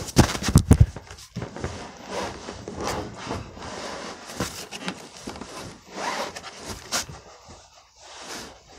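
Handling noise: the phone's microphone rubbing and scraping against fabric and fingers, irregular and uneven, with a few sharp knocks in the first second.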